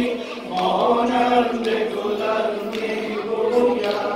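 A group of men chanting a Muharram mourning lament together with the reciter, long held notes in unison.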